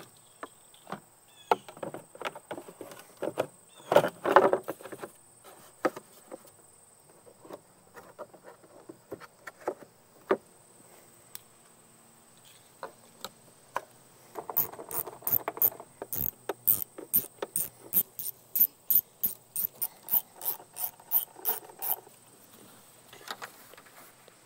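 Clicks and knocks of hand tools and parts on a Cub Cadet riding mower's engine compartment as it is put back together after a wiring repair. About two-thirds of the way through comes a run of quick, even ratcheting clicks, about three a second. The engine is not running.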